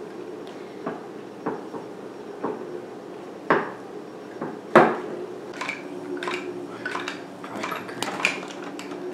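Knocks and clicks of a plastic jerky gun tube being handled and packed with balls of ground venison. The loudest knock comes a little under five seconds in, and a quicker run of lighter clicks follows in the second half.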